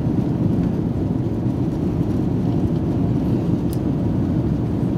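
Steady low rumble of an Airbus A330's jet engines and rushing air, heard from inside the passenger cabin during the climb after takeoff.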